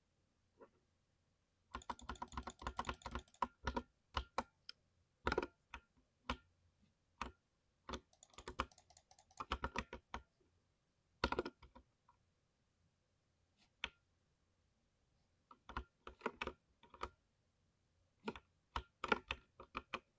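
Mechanical keyboard being typed on, keys striking with a deep 'thocky' sound. The keystrokes come irregularly: a fast flurry about two seconds in, scattered single strokes and short runs after it, a pause of a few seconds, then typing picks up again near the end.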